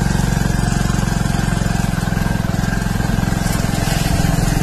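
Small motorcycle engine running steadily at low road speed, heard from on board, with a fast, even pulsing of its exhaust.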